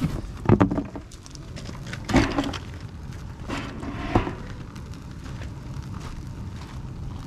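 A cardboard box being handled and stuffed into a burning steel drum burn barrel: loud crunching and scraping about half a second, two seconds and four seconds in, over a steady low rumble.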